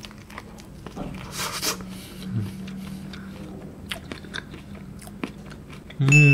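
Close-up eating sounds: a bite into and chewing of a Burger King Hershey Sundae Pie, with soft crunches and wet mouth clicks. At the very end comes a loud hummed voice sound from the eater.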